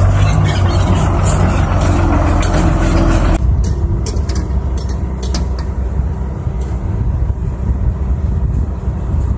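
Hyundai dump truck's diesel engine running as it drives over a rough dirt track. About three seconds in, the sound cuts abruptly to a steadier, lower heavy diesel drone from a tracked excavator working beside a dump truck, with scattered light clicks and knocks.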